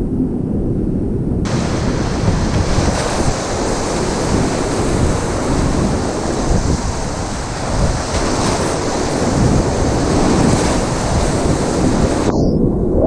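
Rushing river whitewater with heavy wind-like buffeting on the microphone. The water's hiss comes in suddenly about a second and a half in and drops out sharply near the end, leaving only the low rumble.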